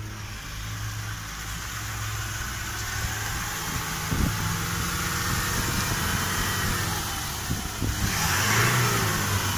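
Toyota Hilux pickup's engine running under load as the truck wades through a muddy pool, water sloshing and splashing around its wheels. The water noise grows fuller about eight seconds in as the truck comes close.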